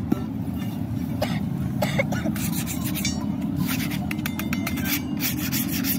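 A hand scraper is rubbed back and forth along a rusty steel leaf-spring leaf, scraping off rust in runs of short, quick strokes, most of them in the second half. A steady low rumble runs underneath.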